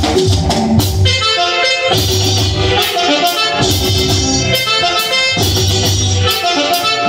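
Live band music: an electronic keyboard melody over a drum kit and electric guitar, with a steady beat.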